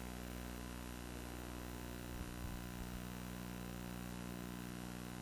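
Room tone in a pause: a steady low hum and hiss from the sound system, with a few faint low knocks about two to three seconds in.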